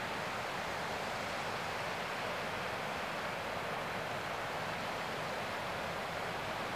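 Steady, even rushing noise that does not change, with no calls, clicks or other distinct sounds in it.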